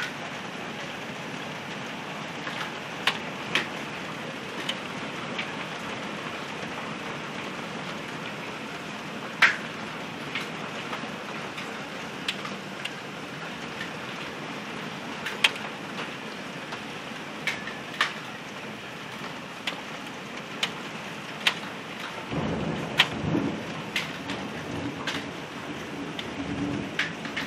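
Heavy rain pouring steadily in a hailstorm, with irregular sharp ticks of hailstones striking hard surfaces, roughly one every second or so. A low rumble comes in for several seconds near the end.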